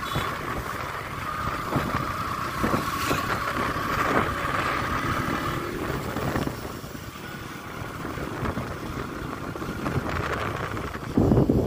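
A moving two-wheeler on a road, with steady riding noise and a thin steady whine that fades about halfway through. Near the end, wind suddenly buffets the microphone.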